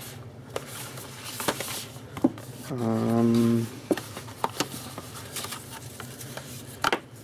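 Cardboard packaging being handled, with light clicks, taps and scrapes as the headphones and their cable are pulled from a fold-out cardboard insert. About three seconds in, a short low hum from a man's voice lasts under a second and is the loudest sound.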